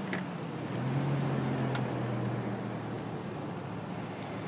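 Road traffic and a steady low engine hum, with two short sharp clicks, one at the start and one just under two seconds in.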